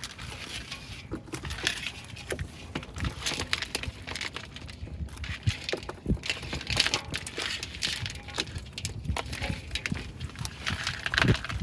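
A fish trap being emptied and the catch handled: irregular knocks and rattles, with short rushing bursts throughout.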